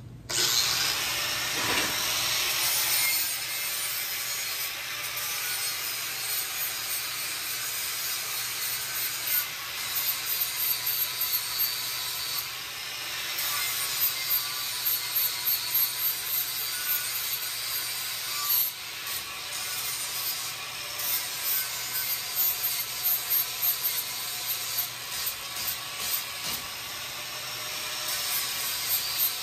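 Angle grinder running against the steel of a car frame, starting suddenly, its high whine wavering in pitch, with stretches of rapid pulsing strokes later on.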